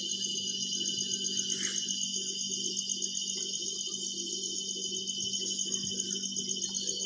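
Crickets chirping steadily in fast, even pulses, over a steady low hum.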